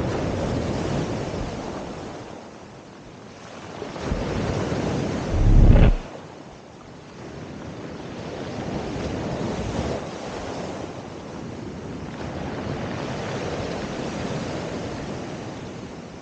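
Sea surf breaking and washing over a pebble beach, rising and falling in slow surges every few seconds. Wind buffets the microphone, hardest in one loud blast about a third of the way in.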